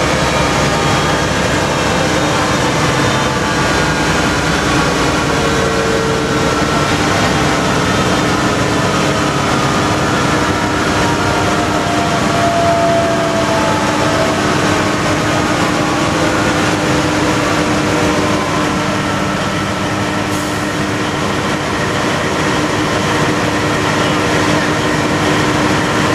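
Diesel locomotive engines of an FS D 345 and D 445 pair running during shunting, a steady loud mechanical sound with several sustained tones that drift slowly up and down in pitch.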